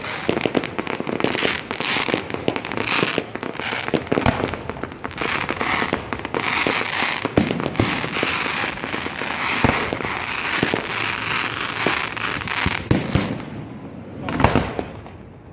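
Fireworks display going off: a dense run of bangs and crackling that thins out near the end, with one more loud bang just before it stops.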